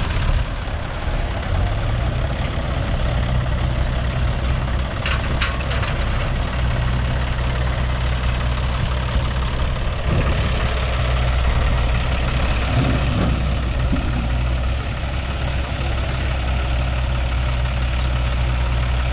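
Diesel tractor engines running steadily at idle, a constant low engine hum with no revving.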